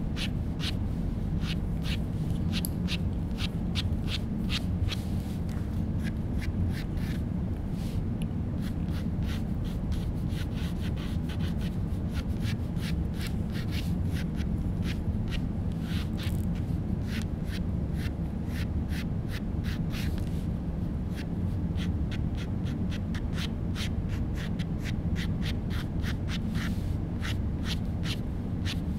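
Fine-tip ink pen scratching across paper in many quick, short hatching strokes, heard as irregular rapid ticks over a steady low room hum.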